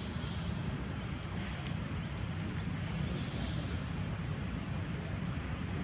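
Outdoor ambience: a steady low rumble with short, high-pitched chirps every second or so.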